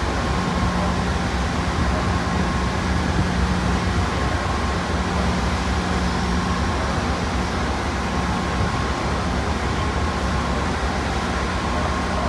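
Metrolink diesel locomotive standing at the platform with its engine running, a steady low hum with a thin constant whine above it.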